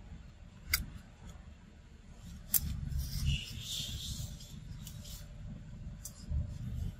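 Leaf rustling and crackling from a macaque feeding among bamboo leaves, with a few sharp clicks, the longest stretch of rustling about three to four and a half seconds in.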